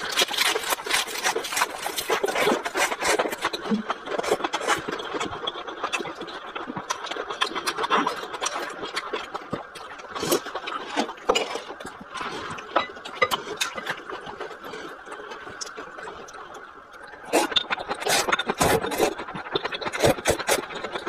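Close-miked eating sounds: fresh lettuce leaves and food chewed with many wet crunches and clicks, thinning out to quieter chewing in the middle. Near the end comes a louder run of slurping as liquid is sipped from a glass bowl.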